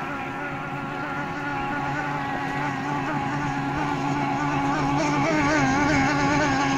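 Methanol-fuelled racing outboard motor on a hydroplane running at a steady high pitch out on the water, growing steadily louder, its pitch wavering slightly near the end.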